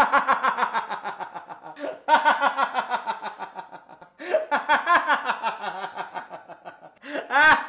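A man laughing hard in three long bouts of rapid, pulsing laughter, each trailing off, with short breaks about two and four seconds in.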